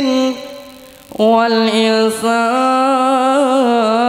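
Solo male voice singing a sholawat without drums. One sung line ends and trails away, then about a second in a new long, drawn-out line begins, with held, wavering notes.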